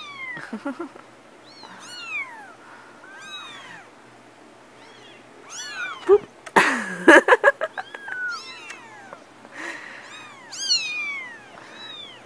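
Young kittens mewing over and over, short high thin mews that rise and fall, one after another. A little past halfway, a brief burst of loud knocks and rustling.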